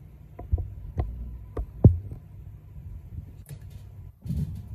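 Low steady hum with a few short, dull thumps and knocks, the loudest about two seconds in.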